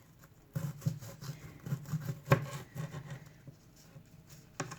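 Light irregular taps and scrapes of a kitchen knife slicing a red onion into rings, with one sharper knock near the middle.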